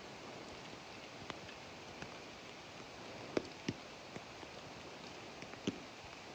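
Steady outdoor hiss with a few scattered sharp ticks and taps, the strongest about three and a half seconds in and again near the end.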